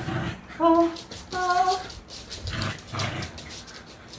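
Bichon frise giving two short, high whines while playing with a ball in its mouth, followed by a few soft thumps of bare footsteps and scampering on the floor.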